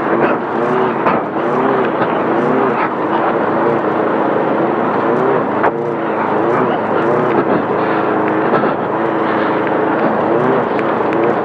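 The air-cooled 1600 cc VW flat-four of a Class 5/1600 desert-racing Bug, running hard with its revs rising and falling every second or so, over a heavy rush of wind, tyre and gravel noise. Several sharp knocks are heard, the loudest about six seconds in.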